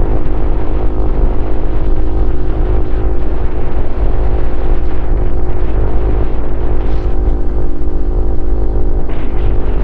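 Honda CRF150L's single-cylinder four-stroke engine running at a fairly steady pace through a Norifumi Noctus T5 aftermarket exhaust, heard from the rider's helmet with heavy low rumble from wind on the microphone.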